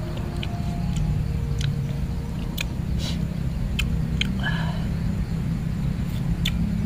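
Eating sounds: chopsticks clicking on a plate and chewing, over a steady low rumble.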